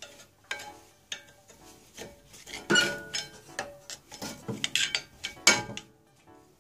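A worn brake pad on a Mercedes ML350 being pried and pulled out of its caliper: metal scraping and a series of sharp clinks with short ringing, loudest about halfway through and again near the end.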